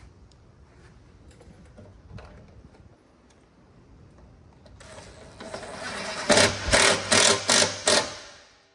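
Cordless power driver running a screw into the plastic cover. The motor builds over about a second and a half, then gives about six short, loud bursts near the end as the screw seats, and stops.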